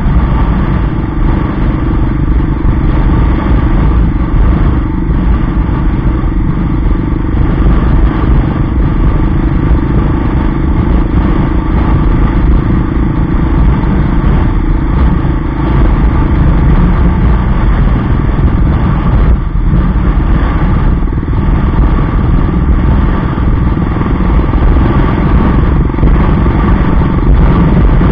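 Yamaha XT 600's single-cylinder four-stroke engine running steadily while riding, its note dropping a little past the middle, over heavy wind rumble on the microphone.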